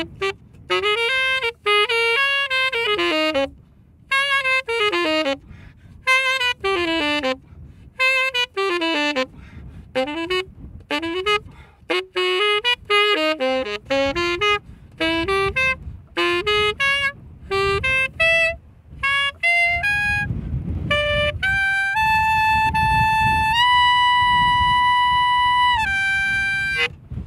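Solo tenor saxophone playing quick rising and falling runs in short phrases with brief breaks, then several long held high notes near the end.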